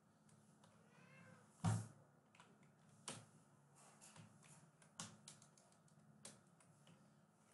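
Faint, scattered keystrokes on a computer keyboard, single taps every second or so, the loudest about two seconds in. Just before it comes a brief high wavering cry that rises and falls.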